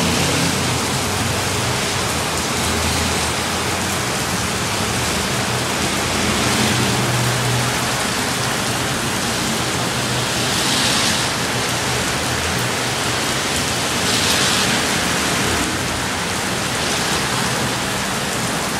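Heavy rain falling steadily, a dense even hiss that swells louder twice for a second or so.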